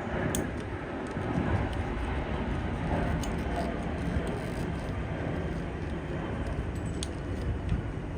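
Steady background noise with a few light clicks and taps.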